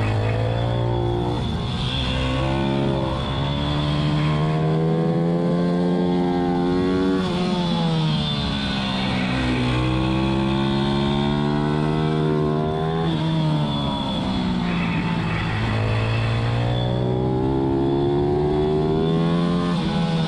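Pit bike's single-cylinder four-stroke engine at racing pace, heard from on board. Its pitch climbs steadily under throttle for a few seconds, then falls back sharply, several times over.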